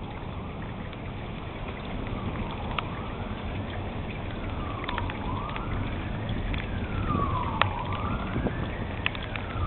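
A siren wailing, its pitch rising and falling about every two and a half seconds and growing clearer a couple of seconds in, sounding for a tornado warning. Underneath are a steady low rumble and a few sharp clicks, the loudest about three-quarters of the way through.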